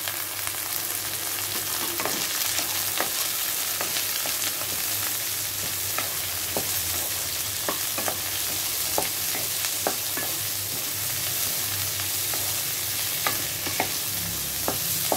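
Sliced small bitter gourd frying in oil with onions in a kadai, a steady sizzle, with scattered clicks and scrapes of a spatula stirring it every second or two.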